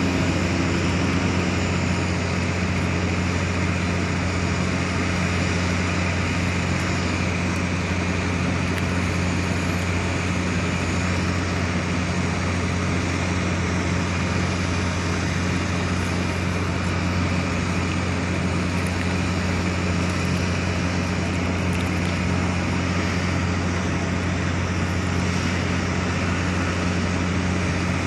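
A steady low mechanical hum at two constant pitches, an octave apart, over an even hiss, unchanging throughout.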